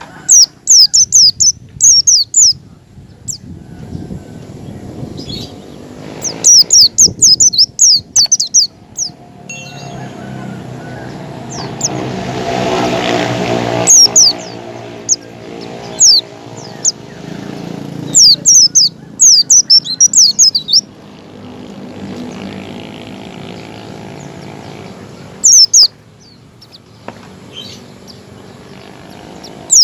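White-eyes (pleci) calling wild-style in rapid clusters of short, high, down-slurred chirps, several bursts with gaps between them. Beneath them a low rumble swells and fades around the middle.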